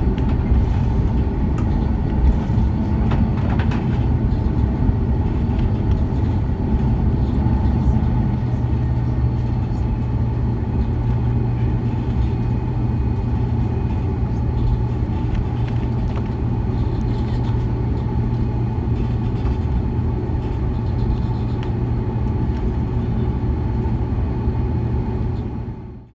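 Steady low rumble inside an Airbus A330 passenger cabin, engines and airframe running with a constant hum, fading out near the end.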